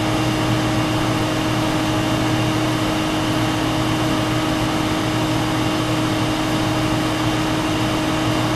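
Steady machine hum with hiss and a constant low tone, unchanging throughout.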